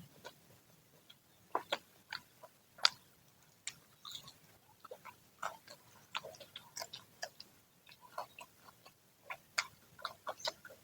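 Chewing of crispy, freshly fried gorengan fritters: irregular crunches and wet mouth clicks, several a second.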